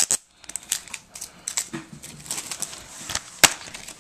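A plastic DVD case and its packaging being handled: irregular sharp clicks, rattles and crinkly rustles, with one sharp snap about three and a half seconds in.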